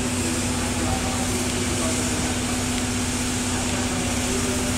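Steady mechanical hum with one constant low tone, from locomotives standing in a depot shed.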